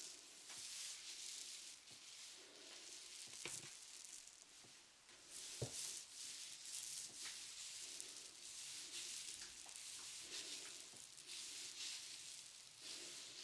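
Faint, close rustling that swells and fades every second or so, with a few small sharp clicks, the clearest about three and a half and five and a half seconds in.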